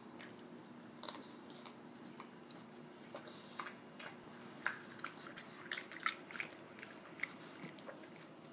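A pug biting and chewing watermelon: irregular wet crunches and smacks, sparse at first and coming thick and fast from about halfway through.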